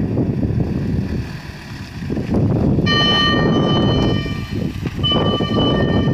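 Fire engine setting off, with a loud rumbling noise of engine and road. About three seconds in a steady multi-note horn sounds for just over a second, and it sounds again briefly about five seconds in.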